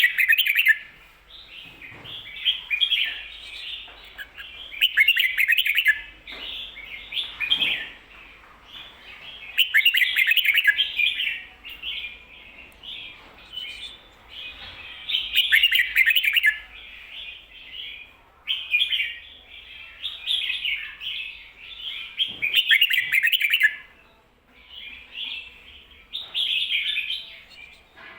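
Red-whiskered bulbul singing: a run of short, chirpy song phrases of the doubled 'ko-ta-ra' type, repeated every couple of seconds with brief pauses between them.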